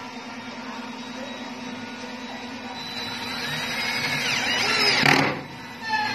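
Cordless drill driving a screw into a table's bracket and panel, its motor running steadily and growing louder over about five seconds, ending in a louder burst before it stops.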